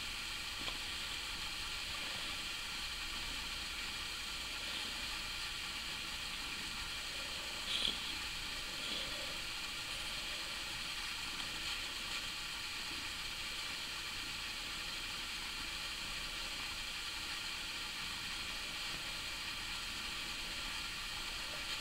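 Steady faint hiss of recording noise, with one brief faint sound about eight seconds in.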